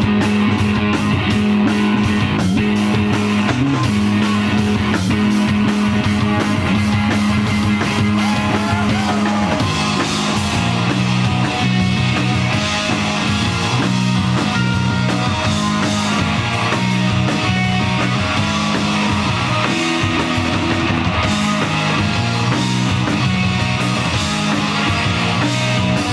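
Live rock band playing with electric guitar, electric bass and drum kit, loud and steady. About ten seconds in, the low line changes from a long held note to a choppier riff that moves between notes.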